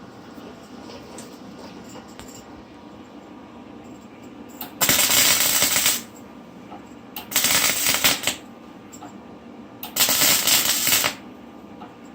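Vulcan welder arc crackling in three short bursts, about a second each, as tack welds are laid on a steel exhaust downpipe.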